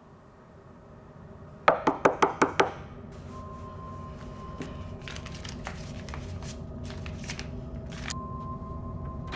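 Five quick, loud knocks in a small room, about five a second, over a low rumble that swells. Faint scattered clicks and a thin steady tone follow.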